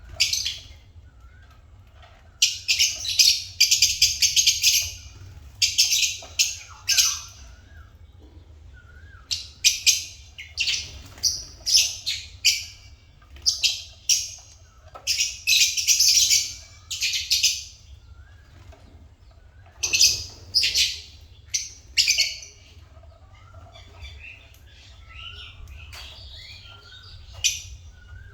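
African lovebirds chirping in shrill, rapid bouts of high chatter, each lasting one to three seconds with short pauses between, over a steady low hum.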